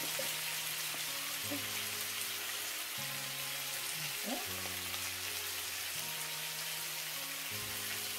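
Chicken pieces frying in a pot, with a steady sizzling hiss. Soft background music with sustained low notes plays underneath.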